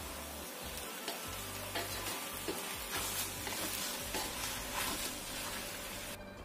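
Stir-fried noodles sizzling in a hot wok as they are tossed with a wooden spatula, with repeated scraping strokes against the wok. The sizzle cuts off suddenly near the end.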